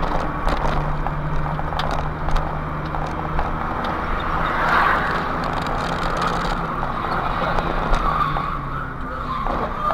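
Vehicle driving on a city road, recorded by its own dashcam: a steady engine hum and tyre and road noise, with a brief screech about halfway through that sounds like tyres skidding.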